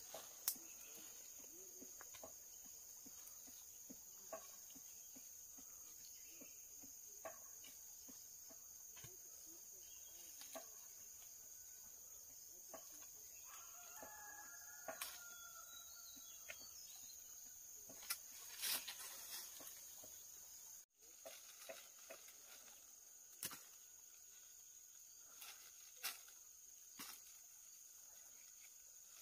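Faint chicken calls, with one drawn-out call about halfway through, among scattered small clicks and knocks over a steady high-pitched hum.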